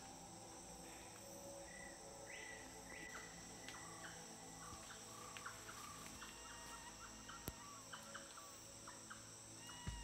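Amazon rainforest ambience: a steady high insect drone, joined from about a second and a half in by short whistled calls and chirps from animals in the canopy. A single sharp click comes about seven and a half seconds in.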